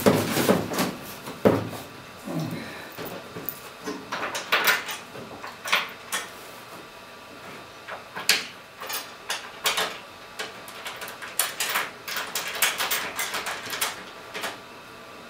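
Scattered clicks and knocks of hand tools and bolts as a fiberglass hood is bolted onto its hinges, with a louder knock about a second and a half in.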